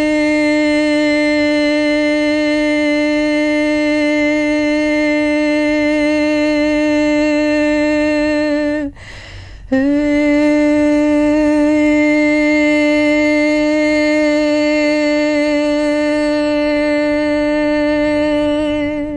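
A woman's voice toning a long sustained [e] vowel at one steady pitch, with many overtones, as the sound exercise for the sixth (eyebrow) chakra. The note is held twice, with a short break for breath about nine seconds in.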